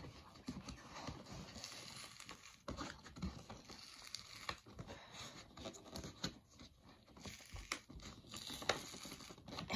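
Quiet, irregular rustling, crinkling and small knocks of a cardboard collector box and its packaging being worked open by hand.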